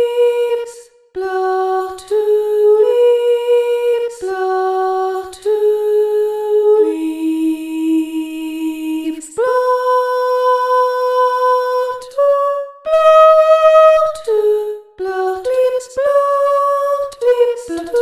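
Realivox Blue sampled female voice in Kontakt singing a slow melody of held notes, one syllable to a note. Two long notes sit in the middle, a low one and then a higher one, and shorter, quicker notes follow near the end.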